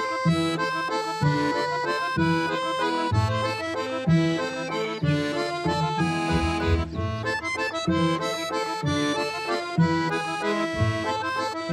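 Accordion music with a steady bass beat about once a second under held chords and a running melody.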